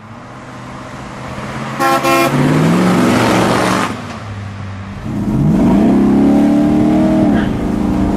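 1957 Chrysler 300C's 392 Hemi V8 approaching, growing louder, with two short horn toots about two seconds in, then the engine note rising as it accelerates past. From about five seconds in the V8 revs up again under hard acceleration, holds, and eases off near the end.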